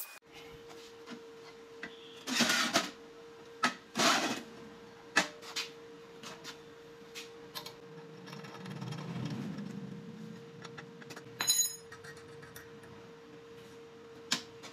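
Steel parts clinking and knocking as a bracket and bolts are handled and fitted on an angle-iron frame: a string of irregular metallic knocks, with a softer rubbing stretch partway through, over a faint steady hum.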